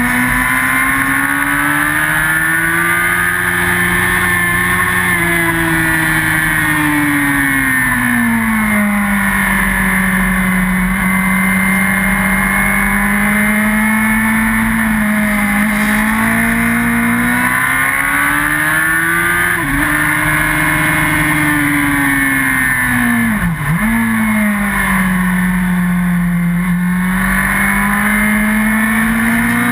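Yamaha R1's inline-four engine running hard on track, heard onboard: its note climbs and falls smoothly with throttle through the corners, breaks off abruptly about two-thirds of the way through as a gear is changed, dips sharply a few seconds later, then climbs again near the end.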